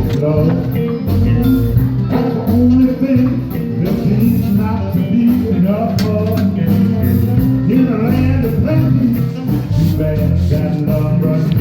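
Background music: a rock-and-roll song with guitar, bass, a steady beat and a male voice singing.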